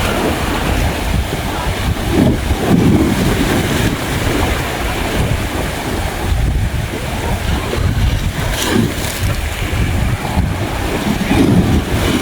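Sea waves washing onto a beach, with wind rumbling on the microphone and swelling louder a couple of times.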